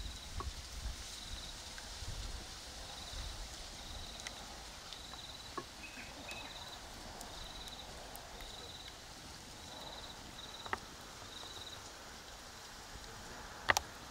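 Outdoor ambience with a small creature's high, short trilled chirp repeating roughly once a second, stopping near the end. A few faint clicks, and one sharp click near the end that is the loudest sound.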